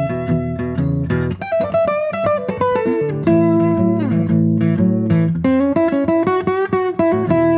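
Background music: plucked guitar playing a quick run of notes.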